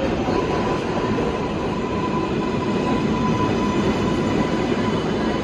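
R188 subway train running on the rails: a steady rumble with a thin steady whine over it that fades near the end.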